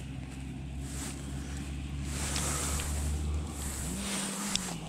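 Steady low motor hum whose pitch steps up about four seconds in, with wind noise on the microphone.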